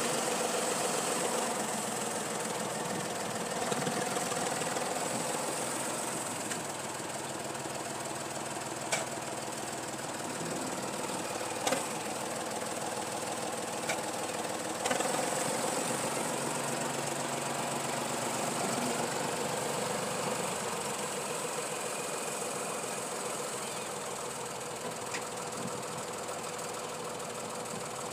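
Tractor diesel engine running steadily with a knocking clatter while it pulls a towed earth scraper through the soil. A few short sharp knocks sound about a third and half of the way in.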